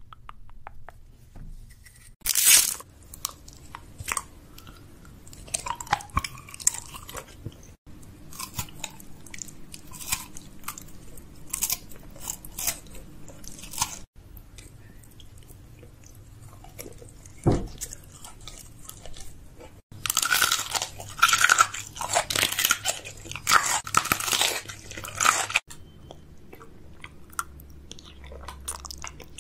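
Close-miked mouth sounds of eating: crunchy bites and chewing of assorted snacks and sweets. The sound comes in short stretches that break off abruptly every few seconds, and the densest, loudest crunching comes about two-thirds of the way through.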